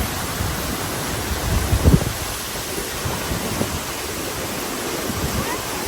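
Steady rushing of a waterfall, with low rumbling and one brief louder thump about two seconds in.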